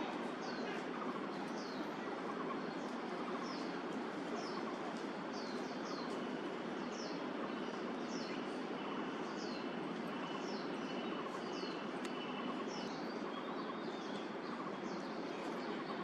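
A small bird repeating a short, high chirp that slides down in pitch, about once a second, over a steady background hiss.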